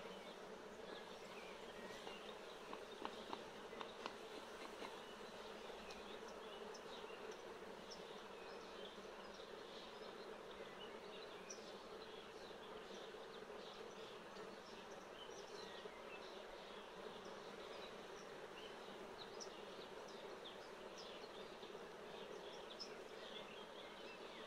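Honeybee colony in an opened hive buzzing as a steady hum, with single bees zipping past close by again and again. A few sharp knocks about three to four seconds in.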